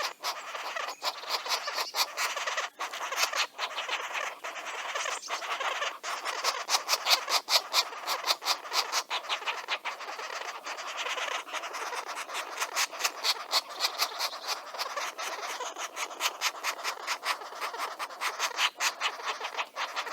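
Wild birds chattering: a fast, steady run of sharp chirps, about five a second, over a dense background of calls.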